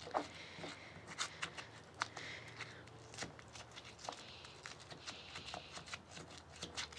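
Stone pestle pounding and grinding garlic cloves with ground allspice in a volcanic-stone molcajete: irregular knocks mixed with grinding scrapes.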